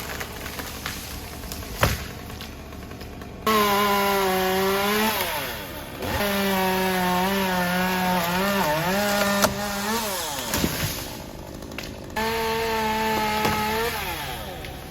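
Two-stroke chainsaw run at full throttle in three bursts, cutting wood, each time winding down in pitch as the throttle is released. A few sharp knocks come before the first burst.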